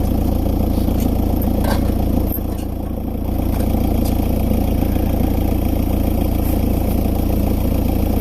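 Steady wind rumble on the microphone, with a few faint light clinks of metal cookware.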